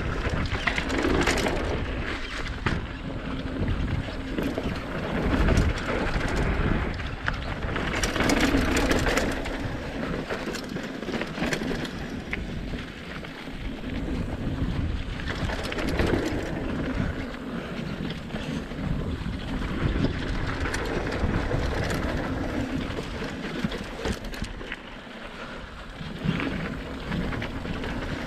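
Mountain bike riding down a dirt flow trail: wind rushing over the microphone and tyres rolling on dirt and gravel, swelling and easing every few seconds, with frequent clicks and rattles from the bike over bumps.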